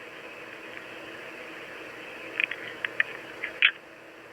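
Steady line hiss and static from a message recording played back through an AT&T cordless phone's digital answering system, with a few faint short clicks about two and a half to three and a half seconds in. The hiss drops off a little just before the end as the recorded message stops.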